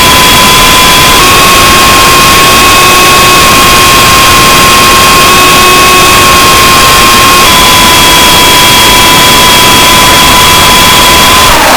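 RC helicopter's motor and rotors heard up close through a camera mounted on the aircraft: a loud, steady whine over heavy rushing noise. The whine shifts slightly in pitch twice and dips sharply near the end.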